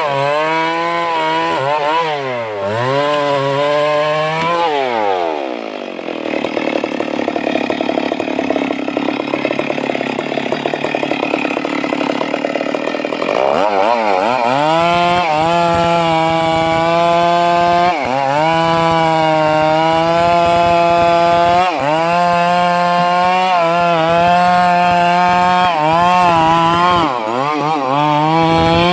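Stihl MS 382 two-stroke chainsaw cutting into sengon wood at high revs, its note dipping and recovering about every two seconds as the chain bogs under load. The note is rougher and noisier for several seconds in the first half.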